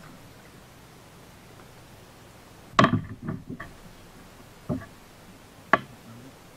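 Several sharp knocks: a quick cluster about three seconds in, then two single knocks a second apart, as fishing gear is handled and bumps on the kayak.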